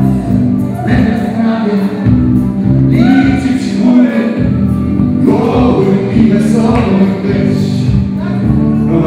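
Loud dance music with a steady beat and bass line and a singing voice, the singing clearer in the second half.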